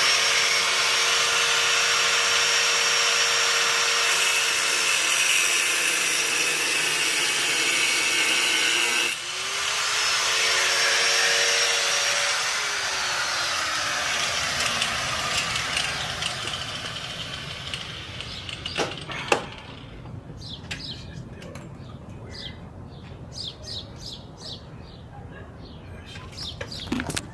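Angle grinder spinning up and cutting into the heads of one-way security screws with a steady loud hiss. About nine seconds in it is let off briefly, spins up again, then winds down. Afterwards come scattered clicks and taps.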